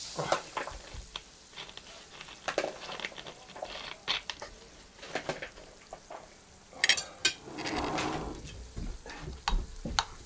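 A metal spoon clinking and scraping against a china soup plate as a cold soup of diced vegetables in kvass is stirred. It makes scattered light clinks, with a couple of sharper ones about seven seconds in.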